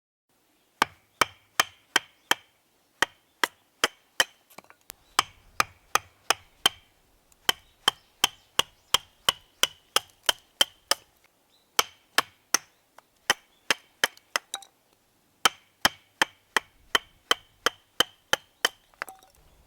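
Wood being chopped with a blade: sharp, evenly spaced strikes about two or three a second, in runs of several with short pauses between.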